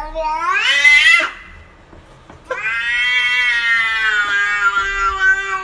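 A tabby-and-white cat meowing up at another cat: first a rising call about a second long, then a long drawn-out yowl of about three seconds that slowly falls in pitch.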